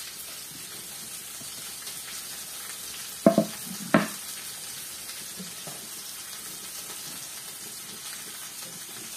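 Pork ribs frying with onion and grated carrot in a frying pan: a steady sizzle. Two sharp knocks, one a little over three seconds in and one about four seconds in.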